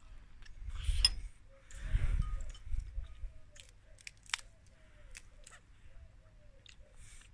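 Crisp crunching and rustling of a fresh lettuce leaf being torn apart by hand. There are two loud bursts about one and two seconds in, then a few sharp snaps.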